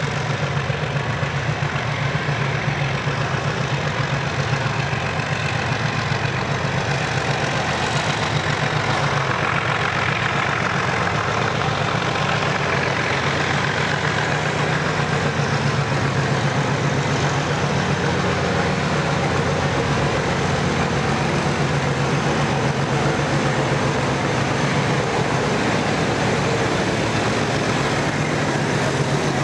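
Diesel locomotive A.9107, an MLW MX627 diesel-electric, running steadily under load as it slowly hauls a heavy loaded oil block train away from a stand.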